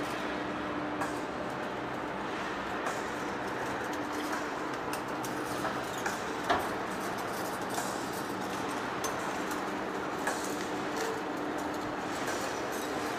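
Heavy-duty lathe running with a large steel workpiece, a steady mechanical hum with a faint low drone, and scattered light clicks and knocks, the sharpest about six and a half seconds in.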